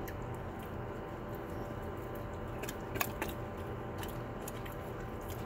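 Saint Bernard licking and chewing, a few faint short clicks and smacks about midway, over a steady low room hum.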